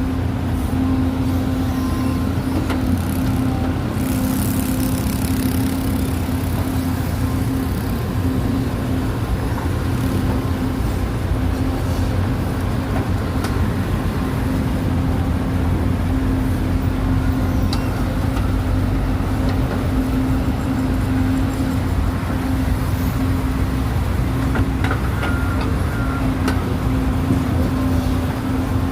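Heavy earthmoving machinery's engine running steadily, a constant low rumble and drone with a few faint clicks.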